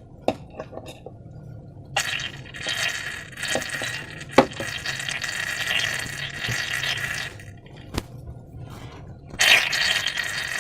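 Wet, sticky slime being squeezed and worked by hand, making a crackling squelch. There is a long stretch from about two seconds in to seven seconds, then a louder one near the end, with a few sharp clicks between them.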